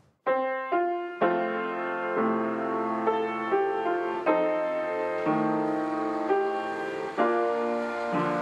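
Upright piano being played: an unhurried melody over ringing chords, a new note or chord struck about once a second.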